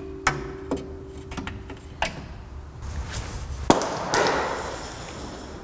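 Metal clinks and knocks from a just-removed front shock absorber of a GMT400 truck being handled, then a sharp knock as it is set down and about a second of scraping as it slides across the concrete floor.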